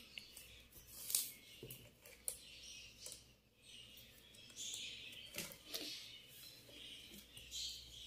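Plastic basket-weaving wire rustling quietly, with scattered sharp clicks, as the strands are twisted and pulled tight while braiding a twisted basket handle.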